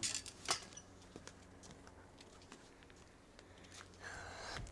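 Handling noise from a phone being carried while filming: scattered light clicks and rubbing, with one sharp click about half a second in and a short rustle near the end.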